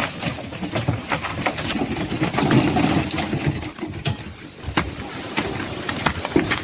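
A vehicle engine running unevenly, with scattered knocks and clatter over it.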